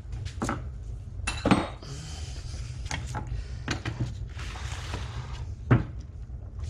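Steel transmission gears and shafts clinking and knocking as they are handled and set down on a wooden workbench, with a string of sharp metal clanks. The loudest clanks come about a second and a half in and near the end, with a short rasp of sliding parts in between.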